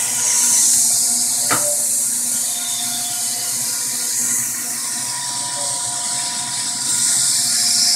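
Xenetech XOT 16x25 rotary engraving machine running with a steady high hiss and a faint whine, with a sharp click about a second and a half in and another near the end.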